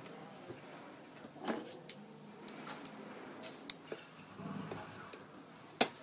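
Handling noise from a home theater amplifier's circuit board and its wires being pulled about inside the metal cabinet: scattered light clicks and knocks with a short rustle, and one sharp click near the end the loudest.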